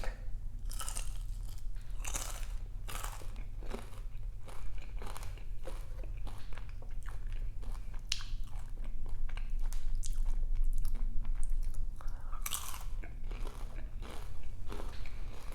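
Close-miked eating: repeated crunchy bites and chewing, with a crackle of crisp food at each bite and several louder crunches along the way.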